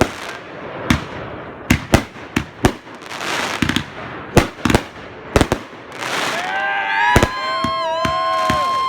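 Fireworks going off: a string of sharp bangs and pops, with a stretch of hissing crackle about three seconds in. A long, steady high-pitched tone runs over the last two seconds.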